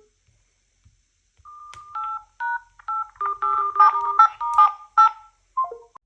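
Samsung Galaxy phone dialer keypad tones: a quick run of short two-tone DTMF beeps as number keys are tapped, starting about a second and a half in, with a short falling tone near the end.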